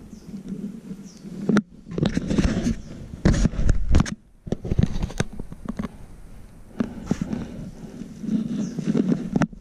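Close handling noise: fleece sleeve and clothing rustling, with a few sharp knocks, as a cat teaser wand is waved about.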